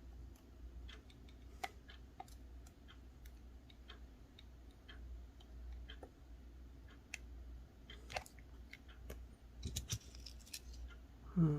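Faint, irregular small clicks and ticks of hand tools working on a circuit board while a tiny surface-mount resistor is desoldered, with a closer run of clicks about ten seconds in. A short sound falling in pitch comes just before the end.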